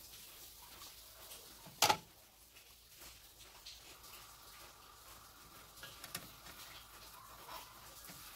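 Faint sizzle of pancake batter cooking in a non-stick frying pan. A single sharp metal clack comes about two seconds in, as tongs are set down on the rim of the batter bowl, and a few light knocks follow near the end as a spatula works under the pancake to flip it.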